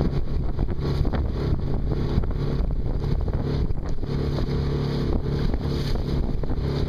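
Gusty wind buffeting the microphone over choppy lake water from an open boat, with a steady low drone underneath.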